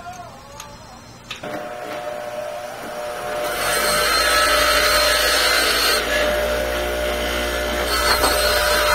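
A few light clicks of a bicycle drive chain being turned by hand, then a bench grinder running. From about three and a half seconds in, it grinds loudly against a steel drive-chain link, taking the pin head off so the pin can be punched out to break the chain.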